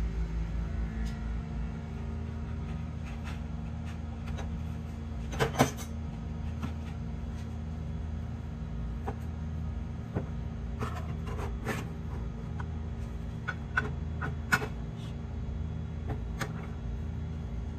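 Metal utensils clicking and scraping against a stainless steel baking pan and plate, a few sharp clicks, the loudest a close pair about five seconds in, over a steady low hum.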